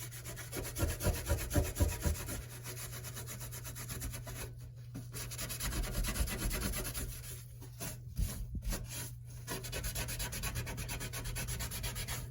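Fast back-and-forth rubbing strokes scrubbing old grime off the sink deck where the old faucet sat, with a few heavier knocks about a second in and short pauses midway.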